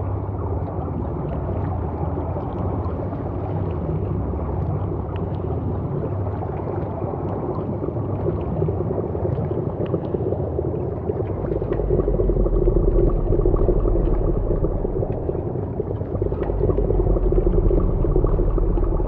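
Experimental ambient soundtrack: a dense, low, murky drone with faint scattered ticks, joined by a deep bass tone about halfway through and swelling louder twice.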